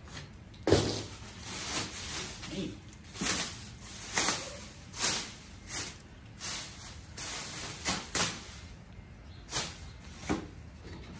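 Cardboard box flaps pushed open and plastic wrapping around a new wheel rustling and crinkling in short irregular bursts, with a louder thump about a second in.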